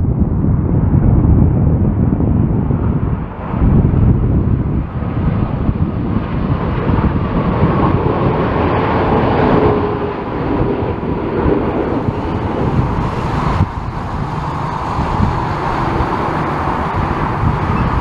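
Boeing 787-9 airliner's jet engines on a low approach: a steady rumble, with a whine that comes up around the middle, mixed with strong gusty wind buffeting the microphone.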